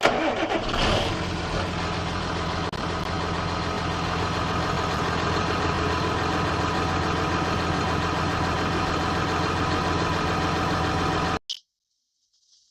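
John Deere 7820 tractor's six-cylinder diesel engine running steadily at a constant speed, cutting off abruptly about a second before the end. A faint short high beep follows near the end.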